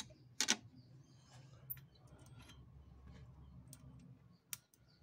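Scattered light clicks and knocks of metal parts being handled on an old Adler shoemaker's sewing machine as its thread-tension regulator is checked, the loudest a sharp knock about half a second in, over a low steady hum.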